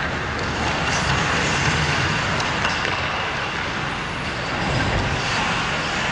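Ice hockey play close to the goal: skates scraping and hissing on the ice over a steady low rumble, with a few faint stick taps around the middle.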